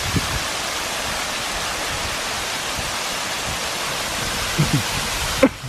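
Storm-swollen waterfall splashing down a rock bluff, a steady rushing noise that cuts off abruptly near the end.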